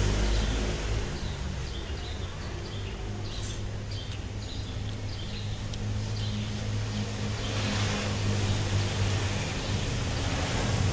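Road traffic running past: a steady low engine rumble that eases in the middle and builds again near the end, with faint high chirps a few seconds in.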